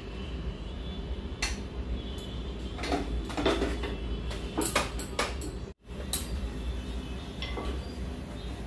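Scattered light clinks and taps of steel kitchenware, a steel plate and bowl handled on the counter while a flour-dusted dough ball is pressed out by hand, over a steady low hum.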